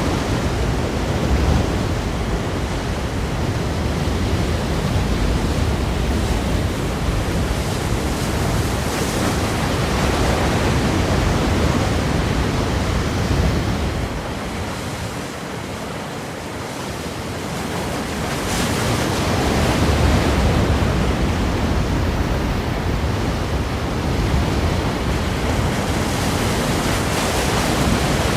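Ocean surf breaking against rocks: a continuous wash of waves that eases off about halfway through, then builds up again.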